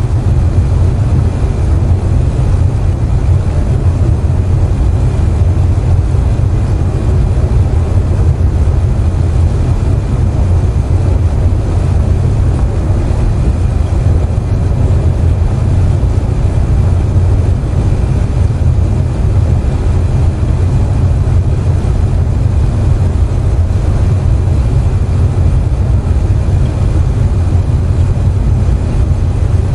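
Air conditioner running with steady rain: a constant deep hum under an even hiss of rainfall, unchanging throughout.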